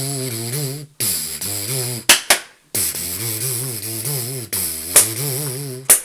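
A cappella vocal music: a voice hums or sings a wavering note with vibrato in several short phrases. A few sharp percussive clicks from mouth percussion or snaps are scattered between them.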